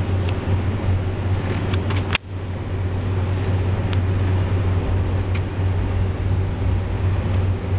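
Steady, loud low rumble and hum of a Boeing 747's engines and air system heard inside the passenger cabin on the runway, with a few light clicks. The sound drops out for a moment about two seconds in.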